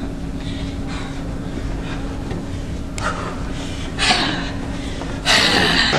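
A person huffing and breathing heavily, a few breathy bursts with the loudest near the end, over a steady low hum.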